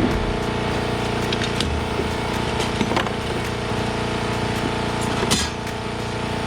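An engine running steadily at idle, with a few light clicks and knocks from hand work: one about a second and a half in, one about three seconds in and a sharper one a little after five seconds.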